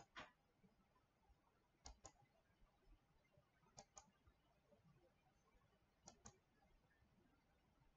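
Faint computer mouse clicks: four press-and-release pairs, about two seconds apart, as labels are dragged and dropped on screen.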